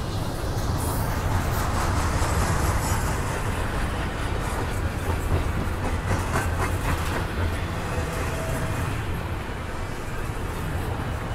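Double-stack container well cars of a long freight train rolling past: a steady low rumble of steel wheels on rail, with a short run of metallic clicks about six seconds in.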